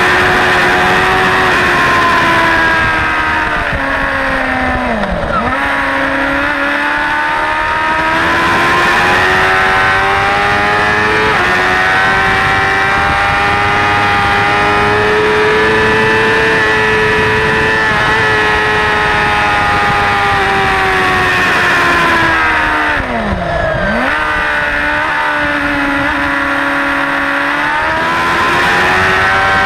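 Suzuki GSX-R600 inline-four engine at high revs, heard from on board at track speed with wind rush over the engine note. The engine note drops steeply twice, about five seconds in and again about twenty-three seconds in, as the bike slows for corners, then climbs again under acceleration.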